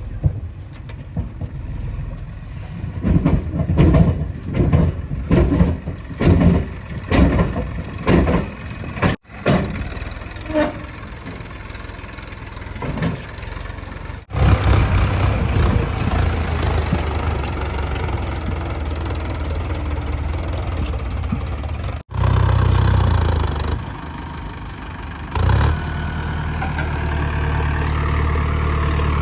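Heavy diesel engine running, surging in a quick series of pulses early on, then running steadily at a low, even note; the sound breaks off abruptly several times where clips are joined.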